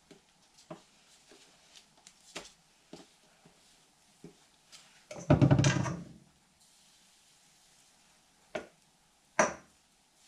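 Kitchen utensil handling: scattered light taps of a wooden spatula and ladle, a longer scrape about five seconds in as the ladle scoops pancake batter from a stainless steel bowl, and two sharper knocks near the end.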